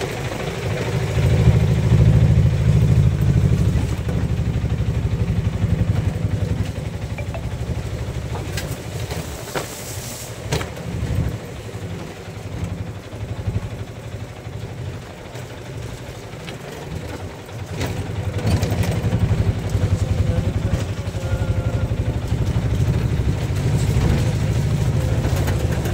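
Gusty wind buffeting the phone's microphone: a loud low rumble that swells and fades with the gusts. It eases off in the middle and comes back strong over the last third.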